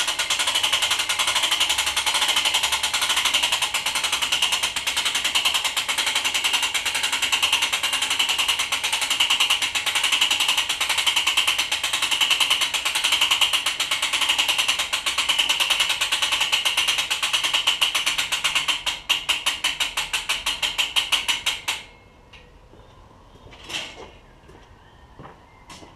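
Rapid, continuous mechanical clatter from the drawing mechanism of a home-made bow shooter being worked. About 19 s in it slows into separate clicks, several a second, and it stops abruptly a few seconds later; a faint knock follows.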